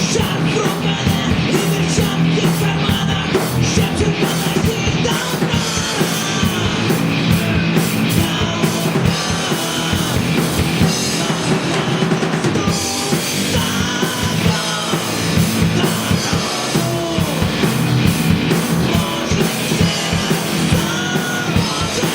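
Live rock band playing loud: drum kit, electric guitars and bass, with a gliding melodic lead line over the top.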